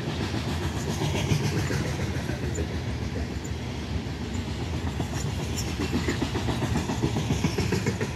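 Freight train of covered hopper cars rolling past at close range: a steady rumble of steel wheels on the rails with rapid, irregular clattering as the wheelsets pass over the track.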